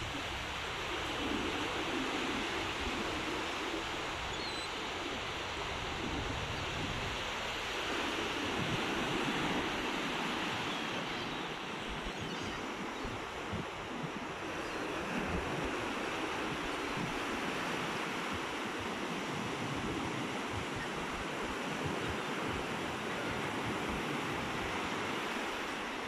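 Sea surf washing onto a sandy beach: a steady, unbroken rush of breaking and receding waves, with wind buffeting the microphone in a low, uneven rumble.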